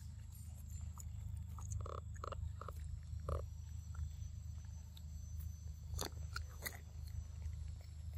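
Macaques right at the microphone: a few short, soft calls about two to three and a half seconds in, then a couple of sharp clicks near six and seven seconds, over a steady low rumble.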